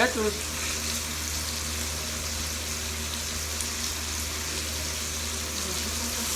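Food sizzling steadily on an electric griller pan during a samgyupsal grill meal, an even hiss with a steady low hum underneath.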